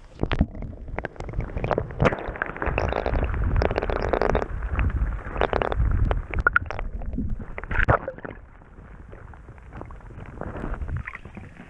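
Muffled underwater sloshing and gurgling of river water around a submerged camera, with small knocks, as a hand holds a smallmouth bass in the current and releases it. Louder for the first eight seconds or so, then quieter.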